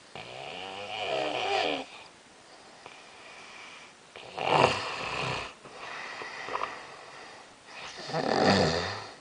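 A sleeping person snoring: three main snores about three to four seconds apart, with a softer one in between. The first has a rattling, buzzing tone and the second starts suddenly. The uploader links the snoring to sleep apnea.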